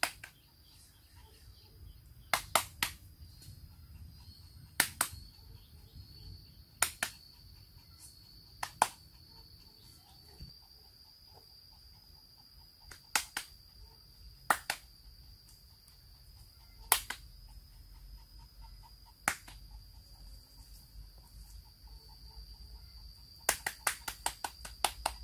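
Sharp hand claps in small groups every couple of seconds, then a quick run of claps near the end, over a steady high insect drone.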